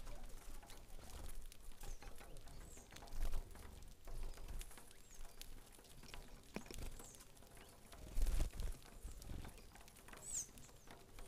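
Saffron finches pecking grain on a wooden platform feeder: a quick, irregular patter of small taps, with a few short high chirps, the clearest near the end. Two low bumps, about 3 and 8 seconds in, are the loudest sounds.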